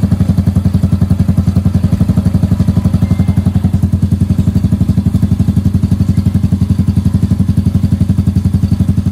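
Motorcycle engine idling through an aftermarket Organ chicken-pipe exhaust with its silencer insert removed, running as an open pipe. The exhaust beat is loud, rapid and even, with no revving.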